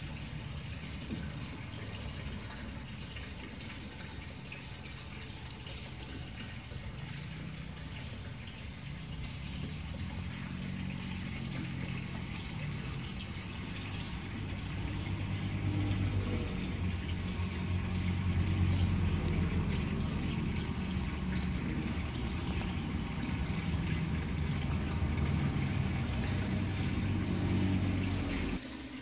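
Water pouring steadily into a deep root watering mesh tube, over a low steady hum, getting louder about halfway through.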